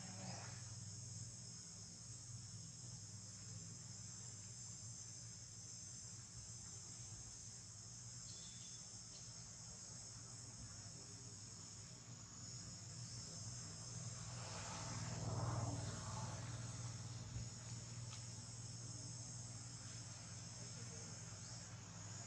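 Steady, high-pitched insect chorus droning without a break, over a low steady hum. About two-thirds of the way through, a broader noise swells up for a few seconds and fades again.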